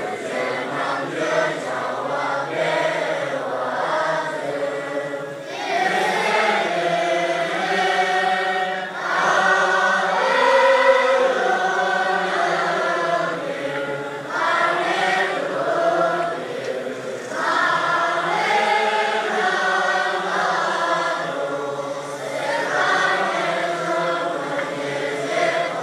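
A large crowd of Tibetan Buddhist monks singing together in unison, a melodic chant in phrases of a few seconds with short breaks between them.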